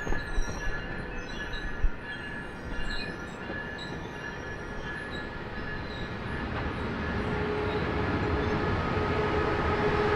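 Passenger train rolling past with its wheels squealing: a steady high squeal with many short squeaks over it, and a few low thumps in the first three seconds. A steady lower tone comes in about seven seconds in, and the sound grows louder toward the end.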